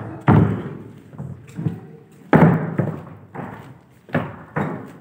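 A series of heavy thuds, the two loudest about a quarter second in and just after two seconds, with smaller knocks between them, each echoing in a large stone room.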